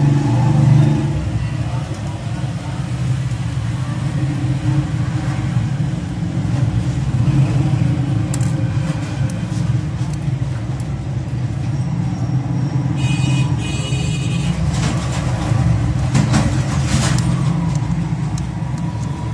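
Steady low rumble of road traffic, with a brief high-pitched tone about thirteen seconds in and a run of short crackling clicks just after.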